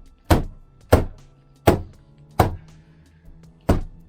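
Five sharp knocks on the Land Cruiser's plastic door moulding, about two-thirds of a second apart with a longer pause before the last: the moulding being knocked onto its new panel clips to seat it. Faint background music underneath.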